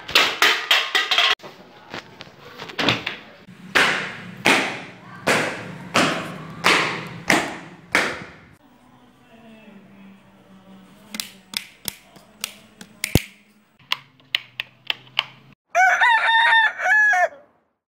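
Heavy footsteps stamping across a hard tiled floor, a sharp thud about every two-thirds of a second for the first eight seconds, then a few light clicks. Near the end a rooster crows once.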